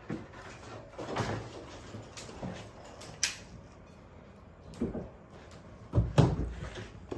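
Scattered knocks and thumps of things being moved or handled, with a sharp click about three seconds in and the loudest pair of thumps about six seconds in.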